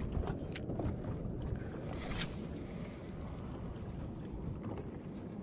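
Steady rumble of wind and water on a small fishing boat at sea, with a couple of light knocks in the first second and a brief hissing rush about two seconds in.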